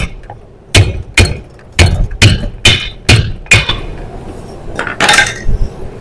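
Hammer blows on a wooden block held against the body of a seized refrigerator compressor, about seven hard strikes at roughly two a second, knocking the compressor to free the seized mechanism. The blows stop about three and a half seconds in, and a short noisy handling sound follows about five seconds in.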